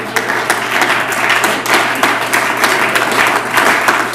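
Audience applauding: many overlapping hand claps in a steady stream.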